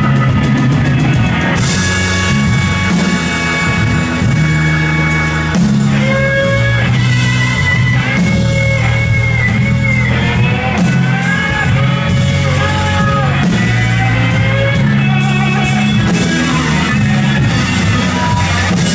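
Live electric blues band playing: an electric guitar lead with bent, sliding notes over bass, drum kit and keyboard.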